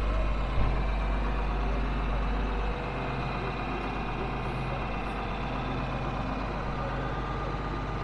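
Farm tractor engine idling steadily behind its rear-mounted tine weeder; the deep rumble drops a little under three seconds in.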